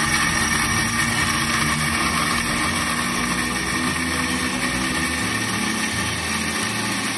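Electric mixer grinder running steadily as it grinds cumin seeds and cardamom in its small jar.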